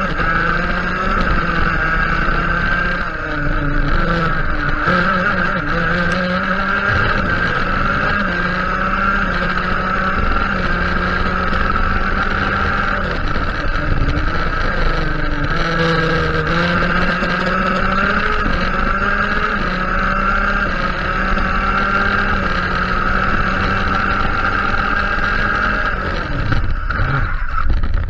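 Honda CR125 two-stroke shifter kart engine running hard at high revs, its pitch dropping and climbing again as it brakes and shifts for corners. Near the end the revs fall sharply under late braking and the kart spins off onto the grass, a spin the driver puts down to too much rear brake bias.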